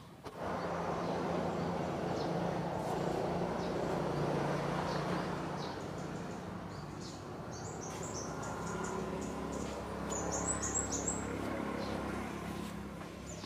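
Steady buzzing hum of bees, with small birds chirping high over it in the second half.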